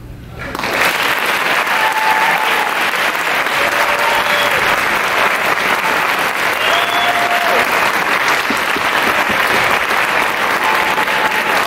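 Audience applauding, starting suddenly about half a second in after the last note of the string orchestra has died away, with a few held cheers rising above the clapping.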